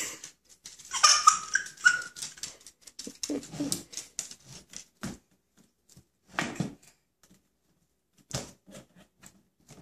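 A pug's short, irregular snuffling sounds as it noses around at floor level, mixed with scattered clicks and taps from a baby pressing the buttons of a plastic activity table.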